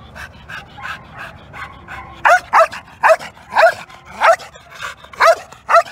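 Young pit bull barking: soft short yips at first, then about seven loud, sharp barks, each dropping in pitch, from about two seconds in.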